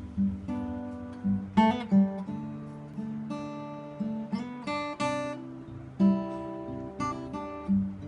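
A 2010 K.Yairi acoustic guitar played solo, mixing picked single notes with strummed chords that ring out and fade between attacks.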